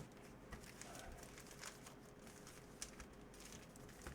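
Near silence with faint crinkling and a few light clicks of trading cards and foil packs being handled.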